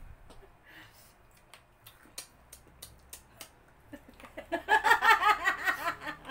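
Women laughing loudly together, a quick run of repeated bursts starting about four and a half seconds in and lasting under two seconds, after a few faint scattered clicks.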